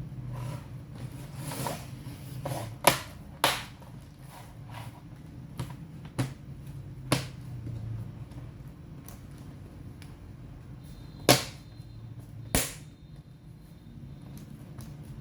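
Sharp clicks and taps of hands handling laptop parts and tools, about five loud ones at uneven intervals with a few fainter ones between, over a low steady hum.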